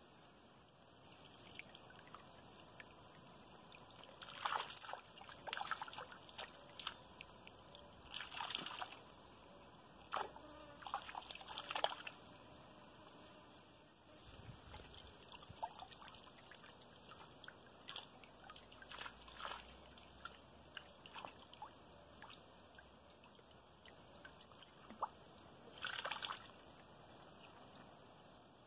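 Faint trickling of shallow stream water with small, irregular splashes and drips, a few of them coming in short clusters.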